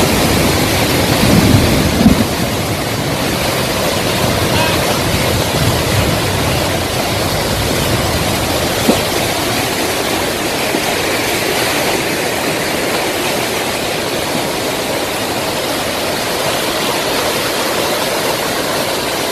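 Rushing runoff water pouring down a hillside and across a road, a steady loud rush.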